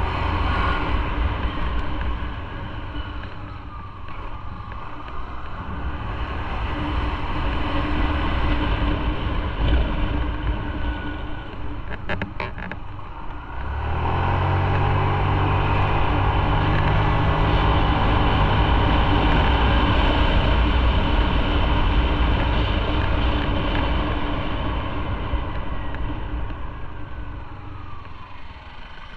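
Motorcycle riding on the road: engine running under road and wind noise, with a few short clicks about twelve seconds in. About halfway through, a deep engine tone comes in and the sound grows louder, easing off near the end.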